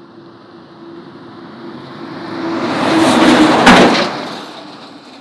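A road vehicle passing close by, its tyre and engine noise swelling to a loud peak about three and a half seconds in and then fading away.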